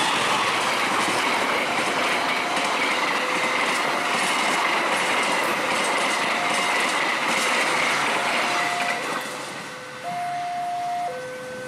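Diesel-hauled passenger train rushing past at speed, its wheels clattering over the rail joints under a steady high whine. The noise falls away about nine seconds in as the last coach passes. A level-crossing alarm keeps up its alternating two-note warning, heard plainly once the train has gone.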